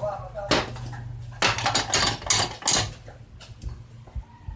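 Hammer blows on the steel of a Jeep brake shoe held in a vise, riveting new lining onto the shoe: sharp metallic clanks, one early, then a quick run of about seven strikes, then a few lighter taps near the end.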